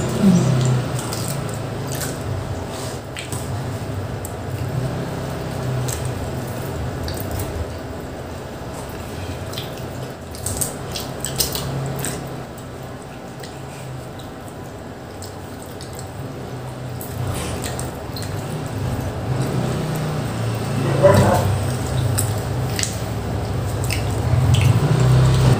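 Chewing and wet mouth sounds of people eating pizza: scattered smacks and clicks over a steady low hum.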